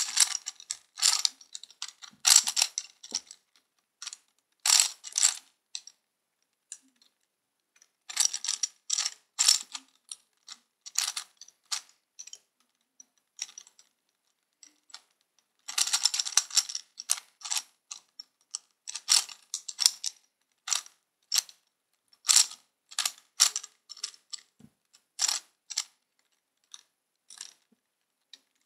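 Plastic Gear Cube being turned in a speed solve: bursts of rapid clicking as its faces and gears rotate, broken by short pauses between move sequences.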